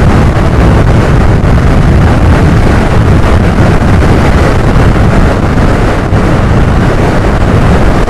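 Loud, steady wind rush buffeting the microphone of a Suzuki scooter riding at highway speed, about 80 km/h, mixed with the scooter's running and road noise.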